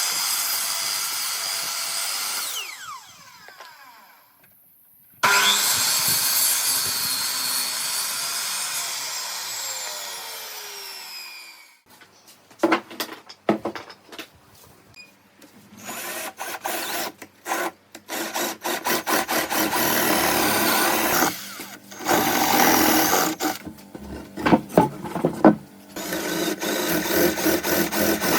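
Handheld power tool on wood in a woodworking shop. It runs and winds down twice, falling in pitch after each release. Scattered knocks and clicks follow, then short on-off bursts of the tool near the end.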